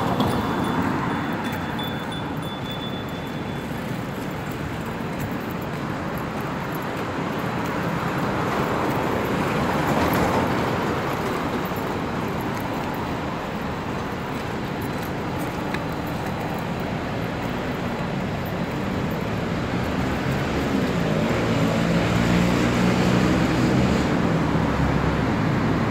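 Road traffic: cars passing along a road, swelling louder as vehicles go by. Near the end a low engine hum comes in close by.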